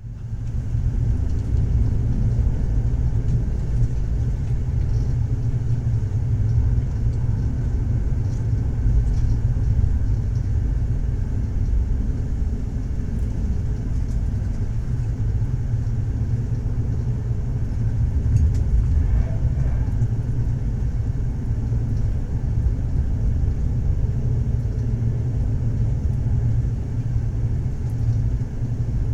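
A moving passenger train heard from inside the carriage: a steady low rumble that holds level throughout.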